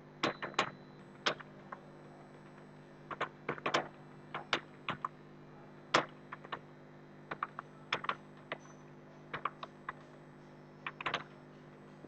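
Computer keyboard being typed on: sharp key clicks come singly and in quick clusters of two to four, with short irregular pauses between, as text is keyed in for a timed typing-speed test. A faint steady hum lies underneath.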